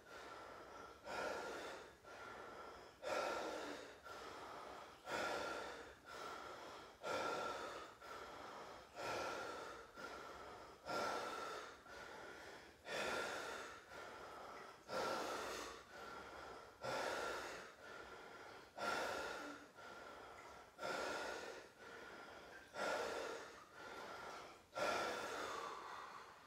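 A person in an ice bath breathing deeply and rhythmically, about one breath every two seconds. Each breath is a sharp, loud pull followed by a softer, longer breath out.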